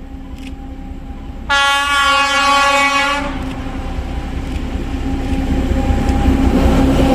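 A train horn sounds one blast, about a second and a half in and lasting under two seconds. It is followed by the steadily louder rumble of the approaching train.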